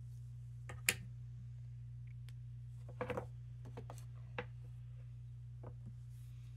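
Quiet room tone over a steady low hum, with a few light clicks: one about a second in, a short cluster about three seconds in, and two fainter ones later.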